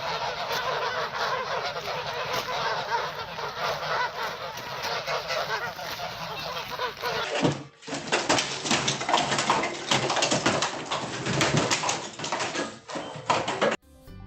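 Many birds calling at once in a dense, overlapping chatter. The sound breaks off sharply about seven and a half seconds in, and a similar crowded calling starts up again.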